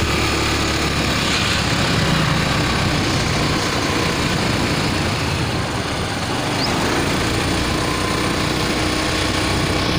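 Two-wheeler engine running steadily while riding along a road, under a steady rush of wind and road noise.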